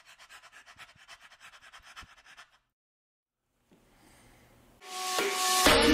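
Dog panting rapidly into the phone, about eight short rasping breaths a second, stopping after two and a half seconds. After a pause, electronic dance music starts near the end.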